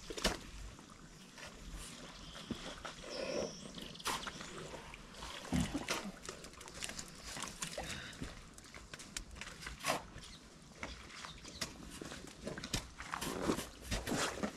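Boots squelching and sucking in thick wet mud, with scattered knocks and clicks as a wooden log is worked loose from the earth bank and lifted onto the shoulder, and a couple of short grunts of effort, one about halfway through.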